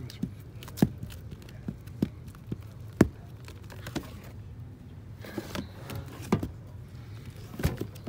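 Vinyl LP record sleeves knocking against each other and the browsing bin as they are flipped through one by one: sharp taps at irregular intervals, roughly one a second, over a low steady hum.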